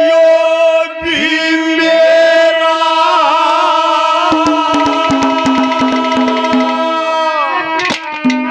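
Live Haryanvi ragni music: a harmonium holds steady notes while a melody line glides and wavers above it. About halfway through, a fast run of hand-drum strokes comes in and stops shortly before the end.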